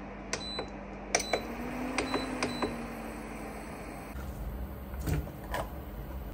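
Induction cooktop control panel beeping as its buttons are pressed to turn it on and step the heat up, about five short high beeps in the first three seconds over a steady electrical hum. About four seconds in a deeper low hum sets in, and there are a couple of light knocks near the end.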